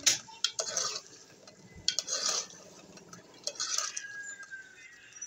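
Metal spoon stirring and scraping through a thick minced-meat and potato curry in a metal pot, in four bursts of scraping and clinking about a second and a half apart.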